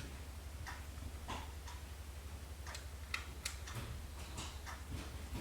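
Irregular small clicks and taps of screws and a screwdriver on metal while a CD drive is being screwed into a PC case, over a low steady hum.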